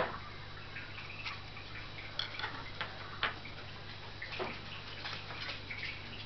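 Scattered small clicks and ticks over a steady low hum, with one sharp click at the start, from items being handled on and off a metal pocket-scale pan.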